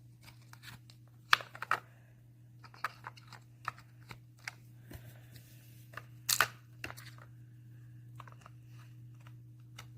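Small plastic stationery pieces and their packaging being handled: scattered sharp clicks and taps with short bits of rustling, over a low steady hum.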